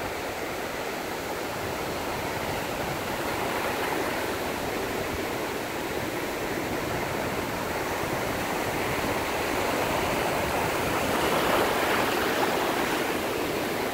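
Ocean surf breaking and washing up a sandy beach: a steady rush of water that swells a little about ten seconds in.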